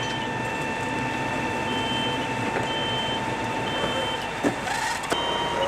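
A fire truck's engine running steadily with a constant whine, and a short electronic beep repeating about once a second.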